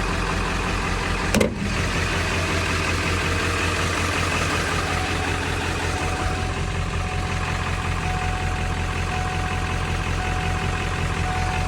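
Vehicle engine idling steadily, with one sharp click about a second and a half in.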